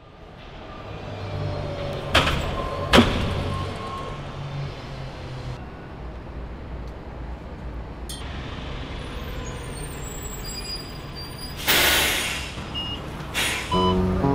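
City bus at a stop, its engine running with a steady low rumble, with two sharp knocks about two and three seconds in. Near the end comes a loud hiss of released air from the bus's pneumatics, then a shorter one.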